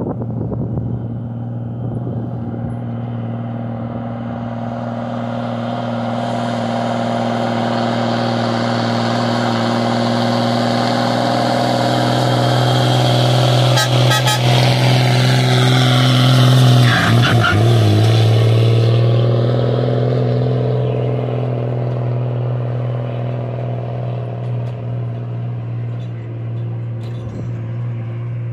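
Diesel engine of a Mercedes-Benz truck with an empty sugarcane cage body, running under load as it climbs a dirt road, growing louder as it comes close and passes about halfway through, with a brief dip in pitch as it goes by, then fading as it pulls away.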